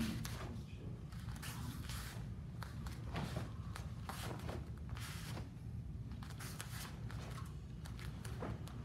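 Taekwondo uniform fabric snapping and rustling with the strikes and kicks of a form, with bare feet stepping and sliding on foam mats, in short scattered sounds over a steady low room hum.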